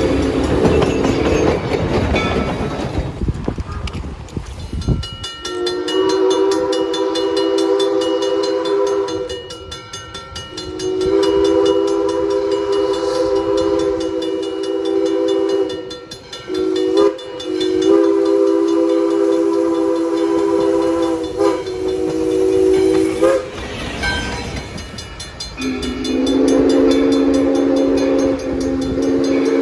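Locomotive multi-chime air horn sounding a steady chord in a long, long, short, long pattern, the grade-crossing signal, then starting another blast near the end. A passing train rumbles under the horn at the start and in the gap before the last blast.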